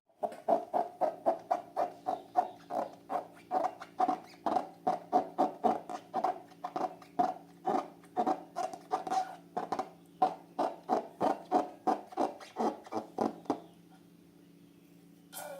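Rubber balloon squeaking in a steady rhythm, about three squeaks a second, as it is rubbed or squeezed; the squeaking stops about two seconds before the end, and one short falling squeak follows near the end.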